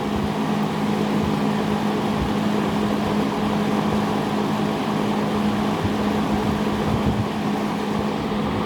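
1971 JCPenney Pencrest 50 box fan, a rebadged two-speed Lakewood S-21 with metal blades and a MacMillan motor, running steadily on high speed. A constant rush of air is heard over a steady low motor hum.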